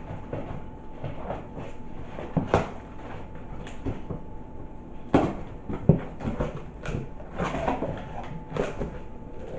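A shipping box being opened and handled by hand: irregular rustling with scattered knocks and clicks, a few sharper ones about two and a half, five and six seconds in.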